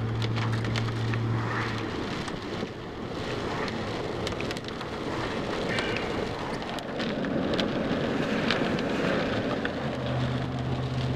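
A car running in heavy rain: a constant rush of rain and wet-road noise with fine ticking drops. Under it is a steady low engine hum that fades after about two seconds and comes back near the end.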